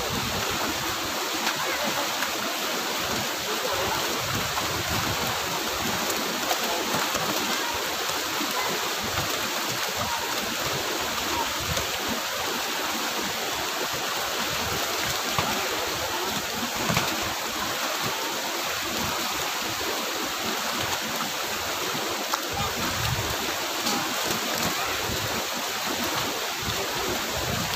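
Steady rush of flowing water, an even wash of noise that holds without a break.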